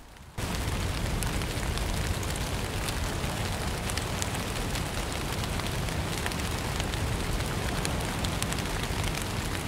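Steady heavy rain, an even rushing hiss with scattered crackling drops, that starts abruptly a moment in.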